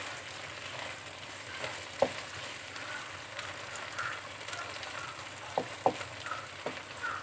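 Sliced marinated chicken breast sizzling steadily in a hot pan over high heat, with a few sharp clicks as it is stirred.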